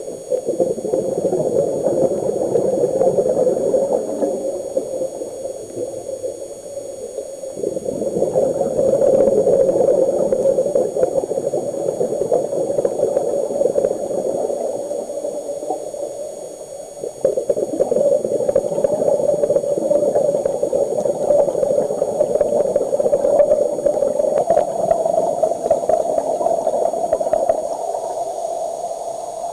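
Muffled underwater bubbling and rushing from a scuba diver's exhaled regulator bubbles, heard through a camcorder's underwater housing. The noise swells and fades in long waves, with faint crackles throughout.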